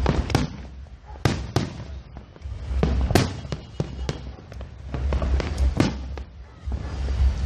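Fireworks display: an irregular series of sharp bangs and crackles over deep, rolling booms.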